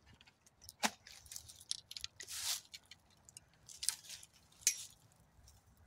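Scattered soft clicks and brief rustles of things being handled close by, the sharpest click about a second in.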